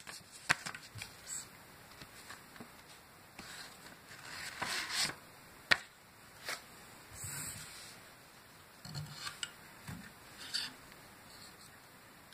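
Handling noise on a metal-and-brass bassoon reed tip profiler: scattered light clicks and knocks from its parts, with short spells of soft rustling, and one sharp click a little before the middle.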